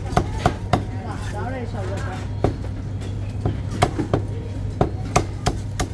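Chinese cleaver chopping crispy roast pork belly on a thick wooden chopping block: sharp, irregular chops, a quick run of three near the start, then single chops and another run in the second half.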